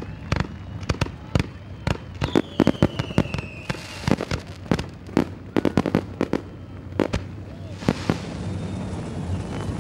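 Fireworks on the pace ute going off in a rapid, irregular string of cracks and bangs for about eight seconds, with a falling whistle about two seconds in. Under them and on after them, the low steady drone of a field of sprintcar engines rolling in formation.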